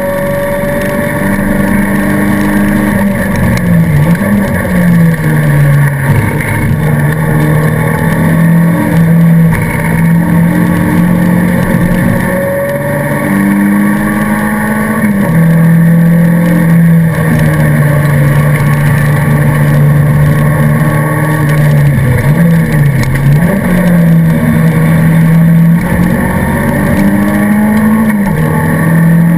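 Racing car's engine, heard from inside the stripped cabin, running hard at high revs; its pitch dips and climbs back again several times, at about 4 s, 15 s and 22 s in.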